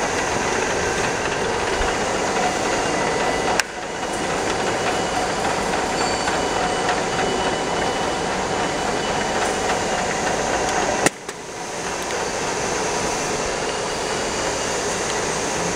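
Factory machinery running steadily: a dense clattering din with a few faint steady whines. Two sharp clicks come about a third of the way in and again past the two-thirds mark, each followed by a brief dip in the din.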